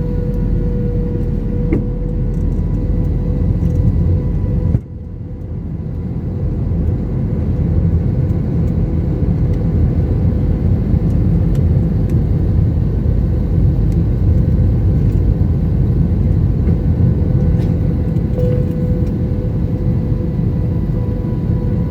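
Airbus A321 cabin noise: a steady deep rumble of engines and airflow with a faint steady whine over it. About five seconds in it drops off suddenly, then builds back up over a few seconds to the same steady rumble.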